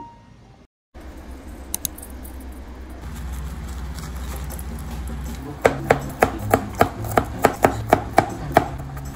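Kitchen knife chopping garlic on a plastic cutting board: a quick, even run of sharp knocks, about four a second, beginning around the middle and lasting some three seconds.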